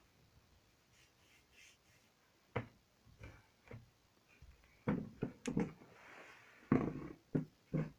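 Soft slime being squished underfoot, making wet squelches and squeaky pops. They start about two and a half seconds in and come thicker and louder in the second half.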